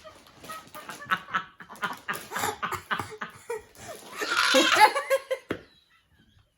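People laughing in short bursts, loudest about four seconds in.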